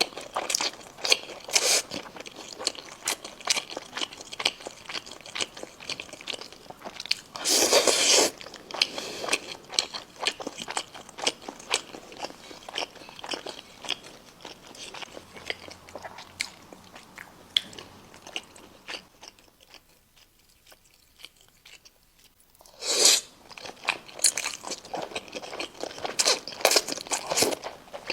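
Close-miked eating of braised chicken: repeated wet bites, crunches and chewing, with two louder crunchy bites about eight seconds in and near the end, and a brief lull before the second.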